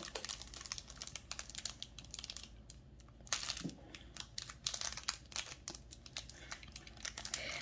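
Foil wrapper of a Pokémon trading card booster pack crinkling and tearing as it is worked open by hand, in irregular crackles that come thickest in the middle.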